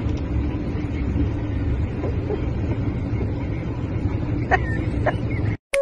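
Car cabin noise while driving: a steady low rumble of road and engine noise, heard from inside the car. A couple of faint short sounds come near the end.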